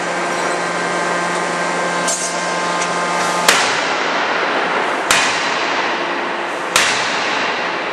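C92K 200 kJ CNC hydraulic die forging hammer striking a steam turbine blade in the die: three sharp bangs about a second and a half apart, each with a ringing tail, over a steady machine hum.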